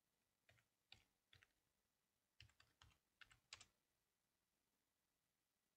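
About a dozen faint keystrokes on a computer keyboard, in quick short runs, stopping after about four seconds.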